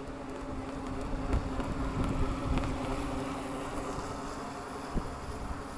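Harbor Freight Neptune RC boat's stock electric motor buzzing steadily as the distant boat runs at speed across the water.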